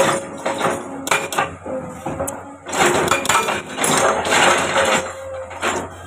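Komatsu excavator working in rock, with repeated metallic clanks and scraping over a low steady engine hum.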